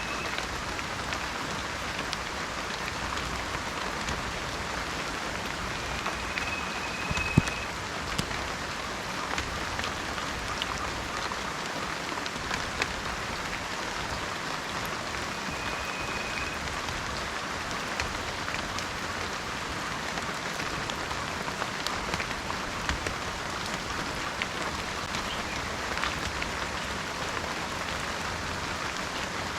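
Steady rainforest rain, an even hiss with many individual drops ticking through it and one sharper drop about seven seconds in. Two short high whistles sound faintly over the rain, one about six seconds in and one about fifteen seconds in.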